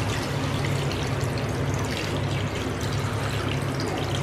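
Water poured in a steady stream from a steel pot into a metal kadhai, onto raw chicken pieces, to boil them. A steady low hum runs underneath.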